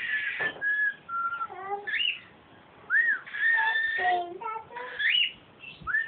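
Young cockatiels calling: clear whistles that glide up and down or hold a steady note, with lower, buzzier chirps between them. There is a short lull about two seconds in.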